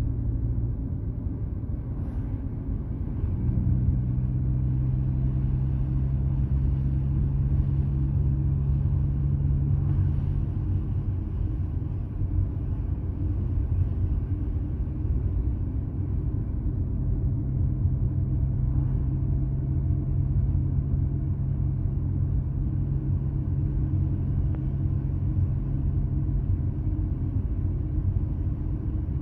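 A car engine and road rumble heard from inside the cabin while driving at a steady pace. About three seconds in, the engine note steps up slightly and gets louder, then holds fairly even without any hard revs.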